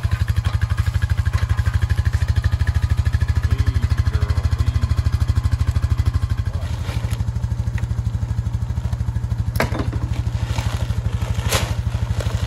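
Four-wheeler (ATV) engine idling with a steady, fast, even pulse. Two sharp knocks sound about two seconds apart near the end.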